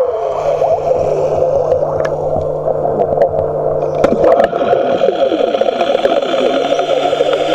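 Water gurgling and sloshing with a steady low hum underneath. There is a sharp knock about four seconds in, after which wavering tones slide downward.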